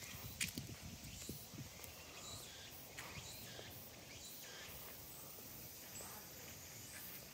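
Footsteps on stone paving slabs, with a few sharp knocks and low thuds in the first couple of seconds, the sharpest about half a second in. After that, faint steady outdoor ambience with occasional light steps.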